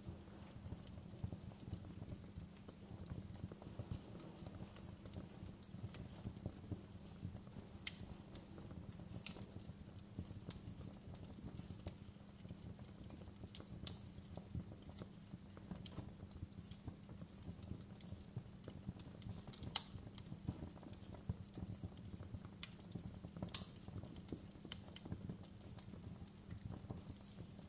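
Wood fire crackling in a fireplace: a dense run of small crackles with a few sharp pops, the loudest about twenty and twenty-three seconds in.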